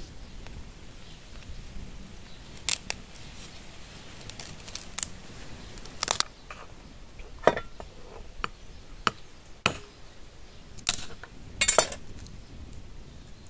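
A series of sharp, irregular clicks and light knocks, about a dozen, spaced unevenly, with the loudest a little past the middle and near the end.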